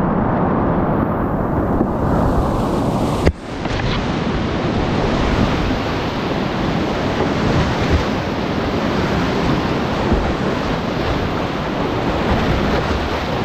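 Loud, steady rush of class IV creek whitewater heard from a kayak running the rapid. It is muffled for the first three seconds, then a sharp click comes and the rush turns brighter and fuller.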